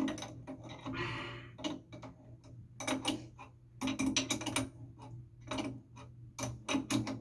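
Irregular metallic clicks and taps of a wrench working a faucet fitting under a sink, with a short scrape about a second in, over a low steady hum.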